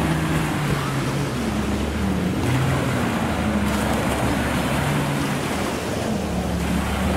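Small waves washing onto a sandy beach, a steady surf noise with some wind on the microphone, and a low, wavering hum underneath.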